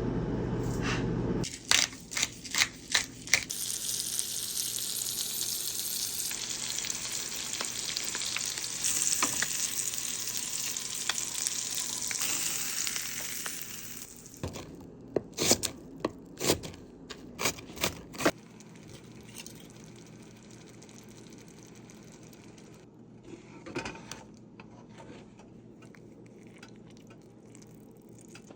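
Food sizzling in a frying pan, with sharp clacks of a utensil against the pan. A run of knocks comes at the start, then a steady hiss of frying for about ten seconds, then more knocks, after which it goes quieter.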